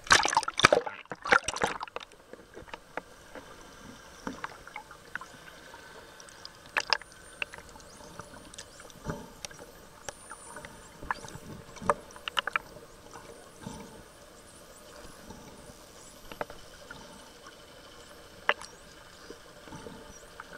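Splashing water for about the first two seconds as the camera dips below the sea surface, then the muffled hiss of being underwater, broken by scattered sharp clicks and knocks.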